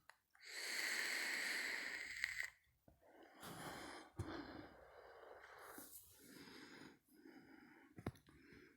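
A person breathing close to the microphone: a long exhale lasting about two seconds, then several fainter breaths.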